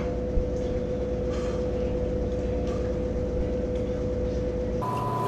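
Steady low rumble with a constant hum tone and a few faint brief noises; about a second before the end the hum cuts abruptly to a higher steady tone with less rumble.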